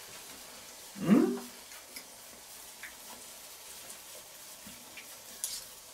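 A man's short, rising "hm?" while tasting food, then faint scattered clicks over a low steady hiss.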